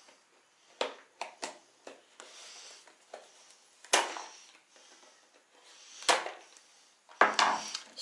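A flathead screwdriver and hands working at PC hardware: scattered sharp clicks and knocks of metal against hard plastic. Two louder knocks come about four and six seconds in, and a short clatter near the end.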